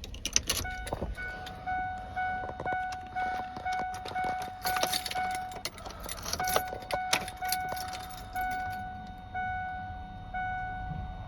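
1998 Ford Expedition's warning chime sounding as a string of short repeated tones once power is restored by a new battery, over sharp clicks and jangling of the keys at the ignition.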